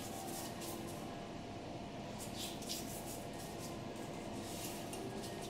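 Pastry brush spreading melted ghee over a sheet of phyllo: soft, papery swishes in a few clusters of strokes, over a low steady room hum.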